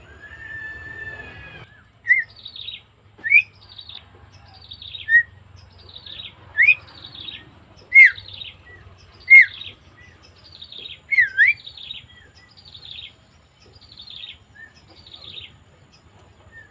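Javan myna calling: a drawn-out whistle at the start, then a long run of short repeated calls, each a sharp whistled note followed by a harsher falling note, coming a little faster than once a second.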